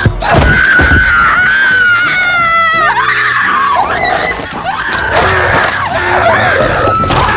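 A person screaming over film music: one long, high scream that wavers and then drops in pitch and breaks off about three seconds in, followed by further cries and shouts.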